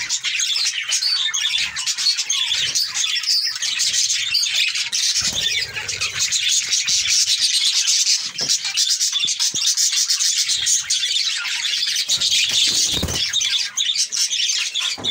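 Budgerigars and other small parrots in a breeding aviary chattering and chirping together in a dense, unbroken chatter.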